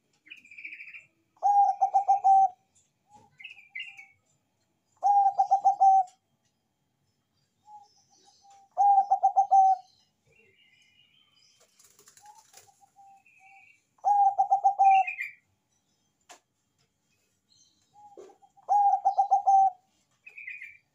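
Zebra dove (Bangkok perkutut) singing: five loud, rapid staccato coos, each about a second long and coming about every four seconds, each opened by a short soft note. Faint high chirps come in between.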